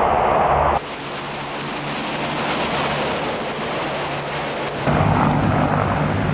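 Harrier jump-jet engine noise cut together in segments. A steady jet hum stops abruptly under a second in and gives way to a broad rushing roar for about four seconds. The jet hum then cuts back in near the end.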